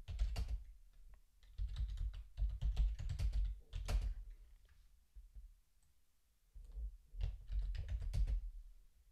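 Typing on a computer keyboard: quick runs of key clicks with a dull thud under each stroke, stopping for about two seconds midway, then more keystrokes as a terminal command is typed in.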